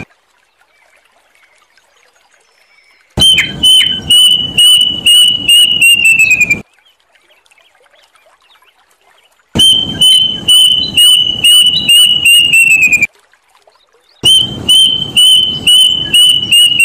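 Plaintive cuckoo calling: three runs of about ten whistled notes each, every run lasting some three seconds with its notes sliding lower toward the end, separated by pauses of one to three seconds.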